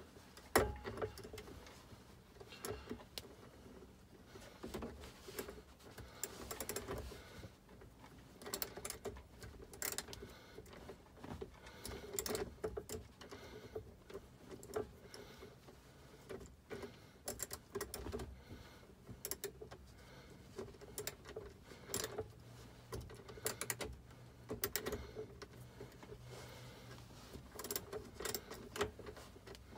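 Irregular light clicks, taps and scrapes of a small metal clamp, its screw and a hand tool as a heater control cable clamp is worked into place. The clamp is stubborn to fit.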